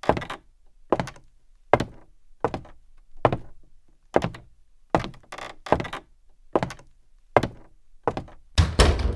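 Heavy human footsteps thudding at a steady walking pace, about one step every 0.8 seconds, with a few quicker thuds near the end: a person approaching.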